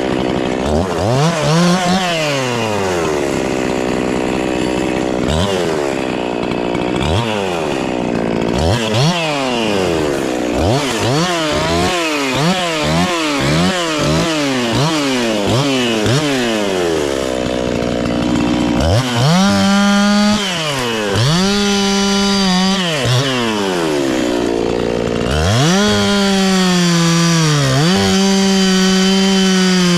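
Two-stroke chainsaw revved up and dropped back again and again, with a run of quick throttle blips midway, then held at full throttle in longer stretches of a few seconds each.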